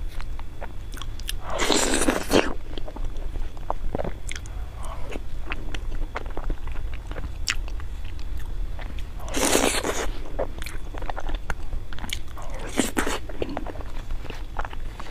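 Close-miked chewing of soft, sauce-coated pig brain: wet mouth clicks and smacks throughout, with three longer, louder wet bursts about two, nine and a half and thirteen seconds in.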